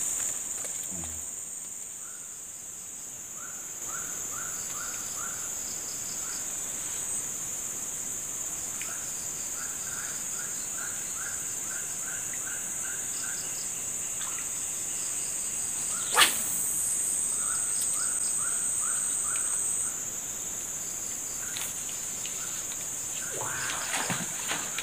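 Insects droning steadily at a high pitch, with a bird calling in short runs of quick chirps several times. A single sharp knock or splash stands out about two-thirds of the way through.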